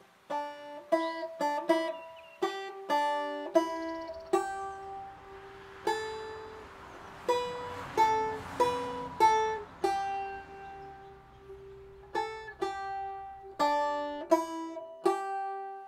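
Banjo picked note by note in a short, simple melody, each plucked note ringing and fading, some notes coming in quick pairs.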